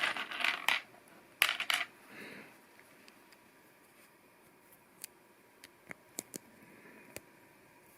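Plastic LEGO Technic pieces clicking and clattering as they are handled and fitted together, with bursts of rattling in the first two seconds and scattered single clicks later on.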